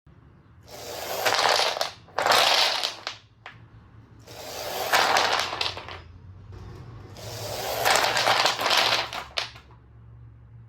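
Motorised Lego Technic model bulldozer under test: four bursts of rattling and scraping, each one to two seconds long, as small hard loose pieces clatter together, over a faint steady low hum.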